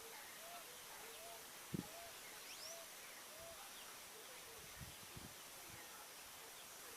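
Faint bird calls: a run of about five short, arched low notes at an even pace, with a couple of high rising chirps partway through. A soft thump comes just under two seconds in, and a few small knocks follow later.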